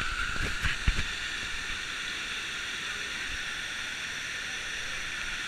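Waterfall rushing into a rock pool, a steady hiss of falling water heard through a GoPro's waterproof housing. A few knocks come in the first second.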